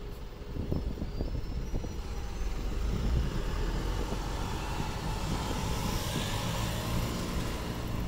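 Road traffic: a bus driving past over the level crossing, its engine and tyre noise swelling in the middle and fading near the end.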